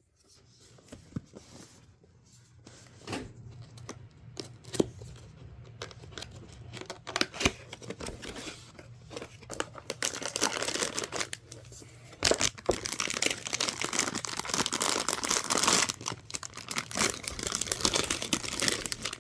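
Graphics card packaging being handled and opened: scattered clicks and rustles, then from about halfway through a long stretch of dense crinkling and tearing.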